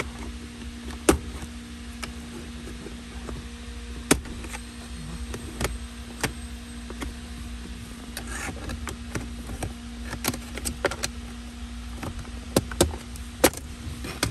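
Scattered sharp clicks and knocks from dashboard parts and tools being handled while a car's dashboard is taken apart, with a brief scrape about eight seconds in, over a steady low hum.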